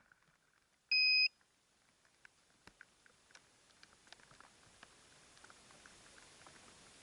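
A single short electronic beep about a second in, one steady high tone, with the quadcopter's motors already stopped. Then near silence with faint scattered ticks.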